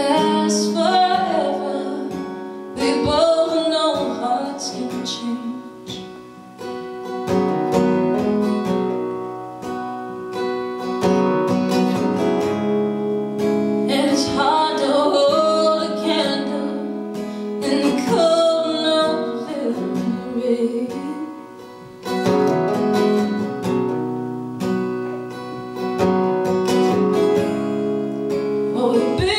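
A woman singing with her own strummed acoustic guitar in a live solo performance. Sung lines come near the start and again about halfway through, with stretches of guitar alone between them.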